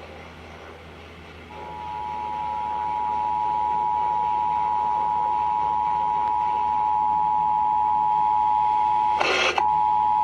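Emergency Alert System attention signal: the two-tone alert (853 Hz and 960 Hz sounding together) starts about a second and a half in and grows louder over its first couple of seconds before holding steady. A short burst of noise cuts across it near the end.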